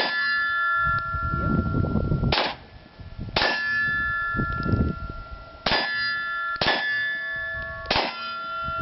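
Six 9mm shots from a Glock 43 pistol, fired in an uneven rhythm. Each strikes a steel target that rings on with a clear metallic tone. Wind rumbles on the microphone between the shots.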